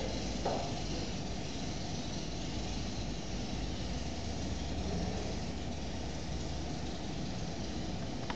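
Steady background noise, a hiss with a low hum underneath, with a brief faint sound about half a second in.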